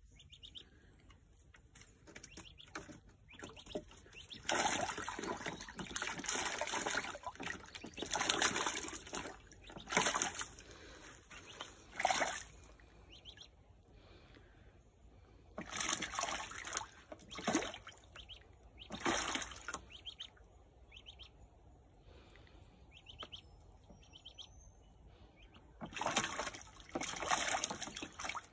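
Australian wood duckling splashing while bathing in a shallow plastic tub of water, in repeated bursts of one to three seconds with quieter pauses between.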